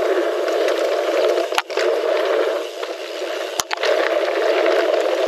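Steady rushing noise of wind and tyres on a ride camera's microphone while mountain biking on a woodland trail. The sound cuts out for an instant with a click twice, about a second and a half and three and a half seconds in.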